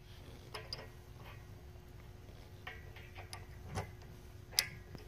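Light metallic clicks and taps of small metal parts being handled and fitted together by hand at the latch end of a tire carrier grab handle's spindle, where the locking dowel goes, with a sharper click about four and a half seconds in.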